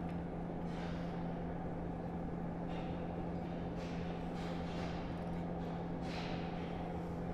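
A steady low hum with one strong constant tone, with faint soft scuffs and scrapes coming and going about once a second.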